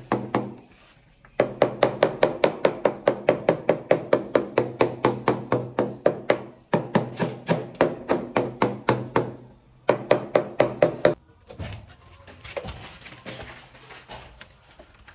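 A hammer tapping a ceramic wall tile into place in quick, even strokes, about five a second, each with a short ringing tone. The taps pause briefly near the start and twice more, then stop about eleven seconds in, leaving fainter, irregular knocks as the next tile is handled.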